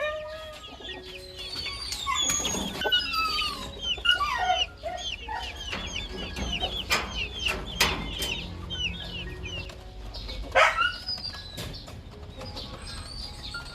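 Chickens clucking, with many short high chirps repeating throughout and a louder call about ten and a half seconds in.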